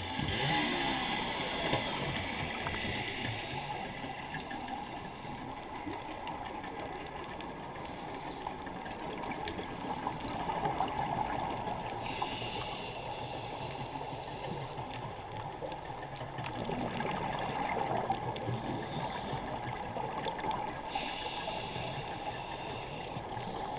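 Water rushing and trickling in a steady wash, with brighter, hissier swells about three times.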